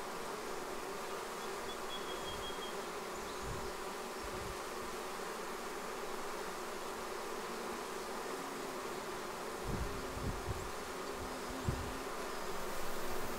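A swarm of honeybees buzzing steadily as they move into their new hive, with a few soft low thumps about ten seconds in.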